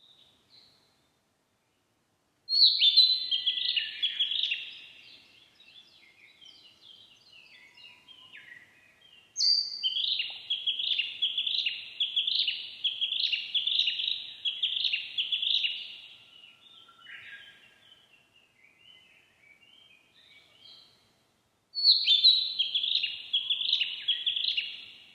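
Narcissus flycatcher singing: three bouts of quick, repeated high phrases, the middle one the longest, with fainter notes in between.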